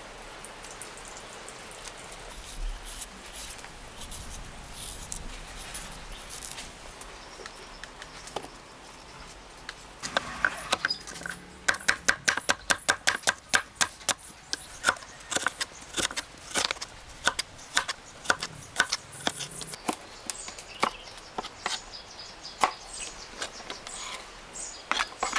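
Vegetables being cut with a crinkle-cut knife on a wooden chopping board: after a quieter stretch of light handling, about ten seconds in a quick, steady series of sharp knocks begins, several a second, as the blade strikes the board.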